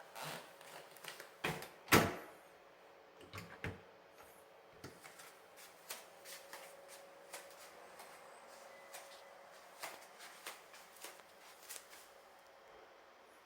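A series of knocks and clicks: a few stronger knocks in the first four seconds, the loudest a sharp knock about two seconds in, then lighter scattered clicks.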